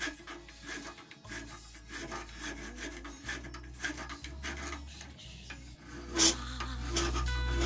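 Hand file scraping across a steel blade clamped in a bench vise, in short irregular strokes. Music comes in near the end.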